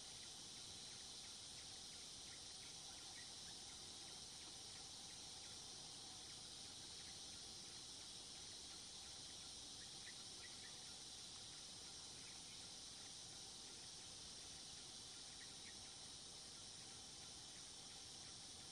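Faint, steady chorus of insects in the trees, a continuous high buzzing hiss, with a few brief faint chirps scattered through it.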